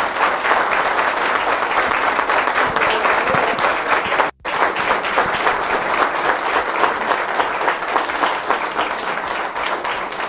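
A small group of people applauding, clapping hands steadily. The applause cuts out for an instant about four seconds in and tapers off slightly near the end.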